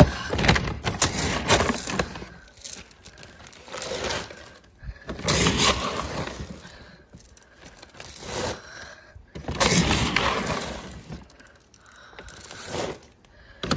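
Plastic dog-food bag crinkling and rustling as it is torn open, with dry kibble scooped out and poured into a zip-top bag, in about five noisy bursts.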